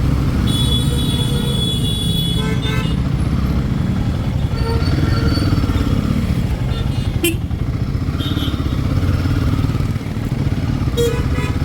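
Royal Enfield Himalayan 452's single-cylinder engine running steadily as the bike rides through city traffic. A high-pitched horn sounds for about two seconds near the start.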